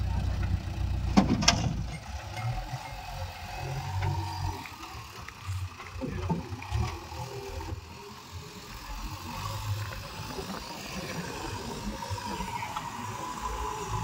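Diesel engines of a JCB 3DX backhoe loader and a Mahindra Arjun 555 tractor running low and steady. About a second in, a bucketful of soil is tipped from the loader into the tractor's steel trolley with a sharp thud.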